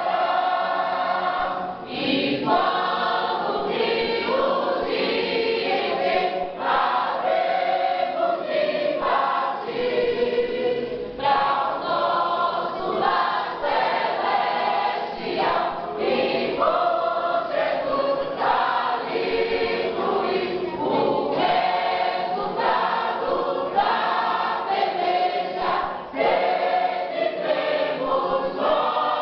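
A church choir singing a gospel hymn, continuously and at full voice.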